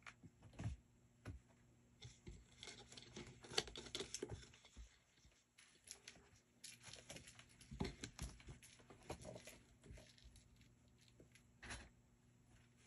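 Two kittens scrambling over an arched cat scratcher: claws scratching and scuffling on it and on the mat in quick scattered strokes, with a few knocks as they jump on and off.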